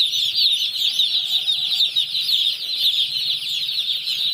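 A brooder full of newly arrived domestic chicken chicks peeping all together: a dense, steady chorus of many short, high cheeps, each falling in pitch and overlapping the next.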